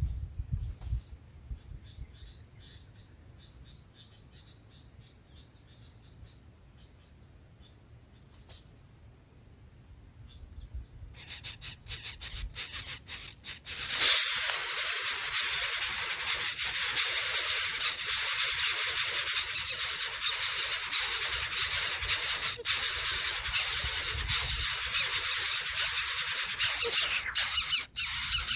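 Greater coucal nestling begging for food with a loud, continuous rasping hiss as the parent feeds it. Scattered rasps begin a little past a third of the way in and turn steady about halfway through. Before that only a faint, high, steady hum is heard.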